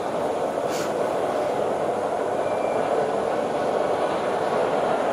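Thameslink Class 700 electric multiple unit approaching, a steady rumble of wheels and running gear growing slightly louder, with a brief hiss about a second in.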